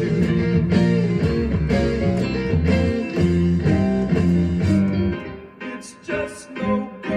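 Instrumental music played on an electronic keyboard, full with a bass line at first, then thinning to a few separate notes with short gaps after about five seconds.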